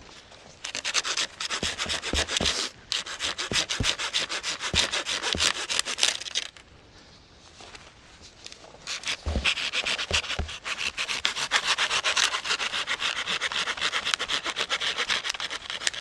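Hand saw cutting dead wood in quick back-and-forth strokes. It stops for about two seconds in the middle, then saws on.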